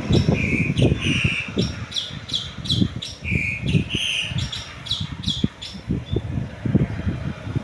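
A bird calls in quick short chirps, more than a dozen in a row, which stop about five and a half seconds in. Under them is a gusty rumble of wind on the microphone.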